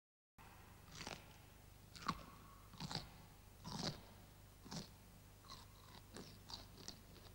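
Faint chewing and crunching, short crunchy bites about once a second, quicker and smaller near the end.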